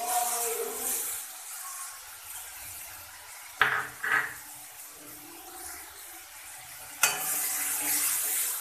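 Ground spice paste sizzling in hot oil in a metal kadai while a spatula stirs and scrapes it. Two sharp knocks on the pan come about three and a half seconds in, and another about seven seconds in, after which the sizzling is louder.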